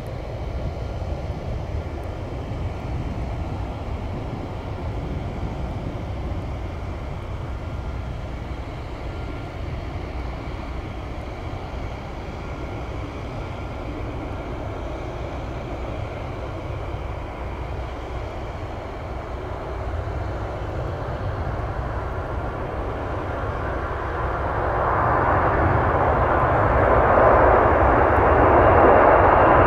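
Steady low rumble, then an airplane's engine noise swelling loudly over the last several seconds as the aircraft approaches.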